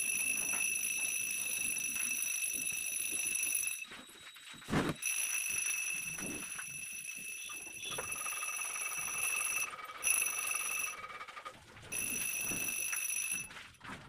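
Puja hand bell ringing steadily in stretches of a few seconds, broken by short pauses. A single knock comes about five seconds in.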